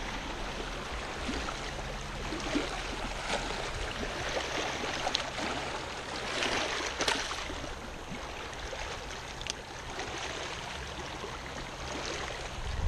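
Small waves lapping and trickling against a rocky lakeshore, with a brief louder splash about seven seconds in as a northern pike is let go into the shallows.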